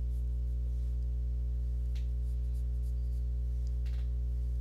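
A pencil scratching out a few faint strokes on sketchbook paper, over a steady low electrical hum that is the loudest sound throughout.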